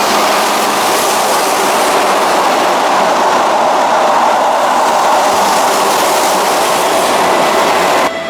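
Keihan electric train passing through the station without stopping: a steady, loud noise of wheels on rails, which cuts off suddenly near the end.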